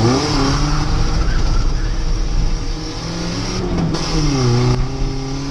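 Nissan Hardbody pickup's engine heard from inside the cab while driving. It revs up, drops sharply in pitch at a gear change right at the start, then pulls steadily; its pitch falls again about four seconds in.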